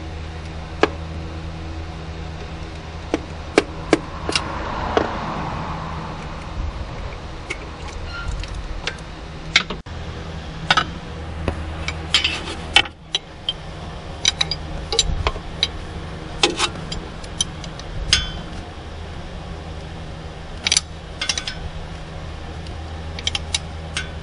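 Scattered light metallic clinks and taps of hand tools being handled, over a steady low hum.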